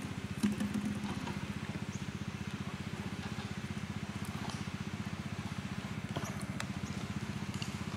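A motor running steadily with a low, evenly pulsing throb, and a brief louder sound about half a second in.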